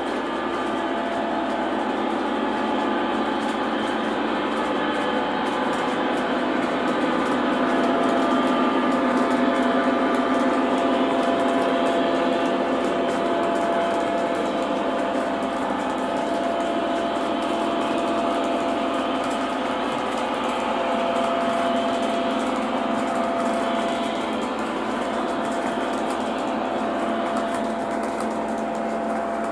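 O gauge three-rail model train running on its track: a steady motor hum with the clatter of many box car wheels rolling over the rails, swelling slightly as the train passes close.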